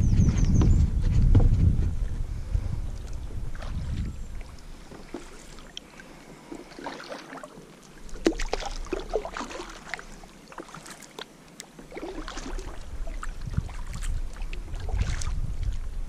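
Kayak being paddled: small splashes and drips of water from the paddle and hull. Wind buffets the microphone in the first few seconds and again near the end.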